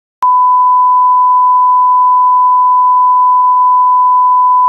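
Loud, steady test tone of the kind played with TV colour bars: one unwavering beep at the standard 1 kHz reference pitch, starting with a click just after the beginning.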